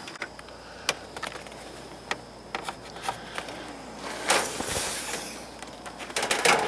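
A hand caulk gun being squeezed to lay a bead of caulk: scattered sharp clicks, a stretch of scraping, rustling noise a little after four seconds, and a quick run of clicks near the end.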